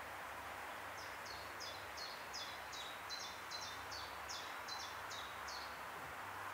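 A small songbird singing a quick run of about a dozen high two-part notes, each stepping down in pitch, about three a second, starting a second in and stopping near the end, over a steady background hiss.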